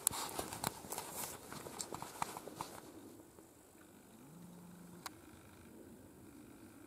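Footsteps of someone walking across mown grass, a quick run of irregular crisp steps that stops about three seconds in. After that there is faint outdoor background with a brief low hum around the middle and a single click.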